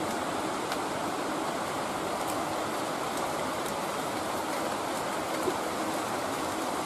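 Heavy rain falling steadily: an even hiss with scattered faint drop taps.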